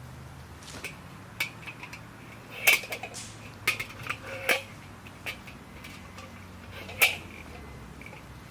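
Metal clinking and tapping: a handful of sharp metallic knocks, each with a short ring. The loudest come a little under three seconds in and about seven seconds in.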